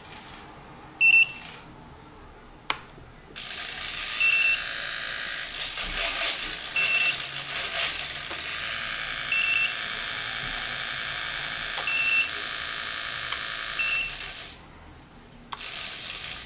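A Flysky 9x transmitter running ER9X firmware gives short, high beeps every couple of seconds, six in all: the sound notice for the flaperon mix switched on. From about three seconds in to near the end, the plane's servos whir steadily, louder than the beeps, as they drive the flaperons with slowed travel.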